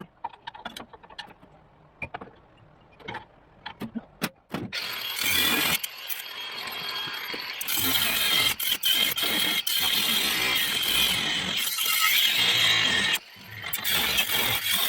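A few knocks and clicks of tools being handled, then about five seconds in a power tool starts working on the rusted floor-pan sheet metal, running loud and steady, with a brief stop near the end.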